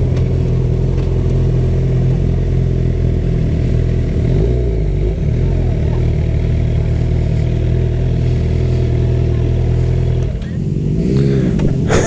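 Suzuki GSX-R sportbike's inline-four engine running steadily at low revs as the bike rolls slowly in. Near the end the note changes, rising and falling, as the bike pulls up to a stop.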